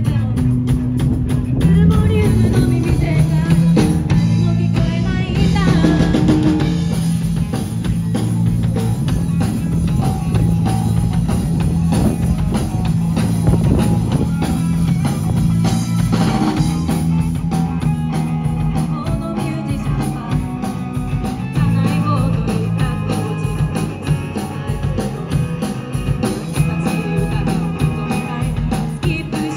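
A live rock band playing: a drum kit beating steadily under amplified electric guitars holding low sustained notes.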